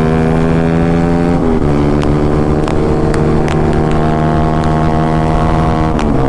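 Yamaha R15M's single-cylinder engine running through an SC Project full-system exhaust, held at steady revs while riding. Its note dips and breaks briefly about a second and a half in and again near the end, then settles at a steady pitch. A few faint clicks sound over it.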